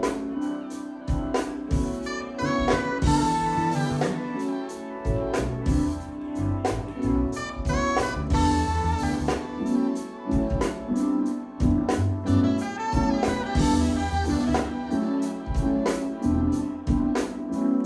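Live instrumental funk-jazz band improvising: drum kit keeping a steady beat under electric bass, keyboards and saxophone.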